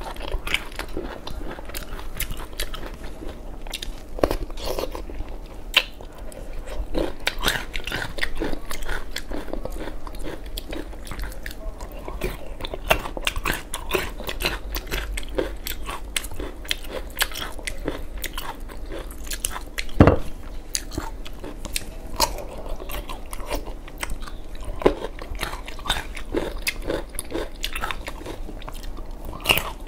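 Close-miked biting and chewing of crunchy whole single-clove garlic: a steady run of crisp crunches, with one louder crunch about twenty seconds in.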